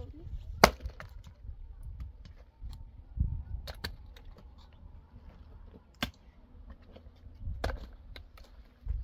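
Dry sticks snapping sharply several times as they are broken by hand for firewood, with small twigs clattering and ticking in between.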